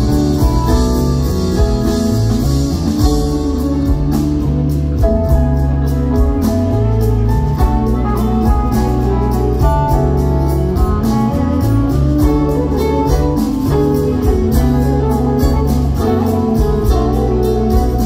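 Live band playing an instrumental passage with no singing: guitars over a walking bass line, with keyboard. About four seconds in, a steady ticking beat on the drum kit's cymbals comes in.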